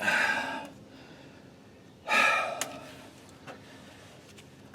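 A man breathing out hard twice, two heavy huffs about two seconds apart, while straining at a stubborn job.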